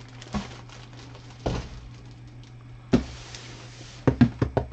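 Knocks and a thud of objects being handled and set down on a hard surface, then a quick run of about six taps near the end, over a steady low hum.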